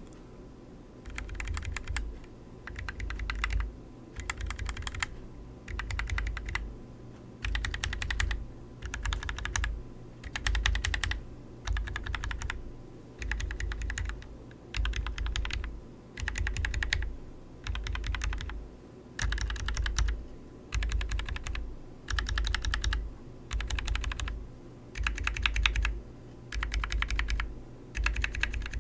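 Mechanical keyboard switches on a sampler board, lubed and unlubed versions of Gateron, Akko and Glorious linears and tactiles, each typed in a quick burst of rapid keystrokes lasting about a second, one burst after another with short pauses between.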